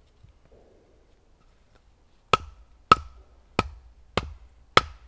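Batoning: a wooden baton striking the spine of a knife set in a small log to split it. Near quiet for about two seconds, then five sharp wooden knocks at a steady pace, about one every 0.6 s.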